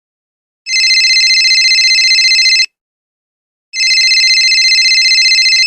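Telephone ringing: two rings of about two seconds each, a second apart, with a fast warbling trill.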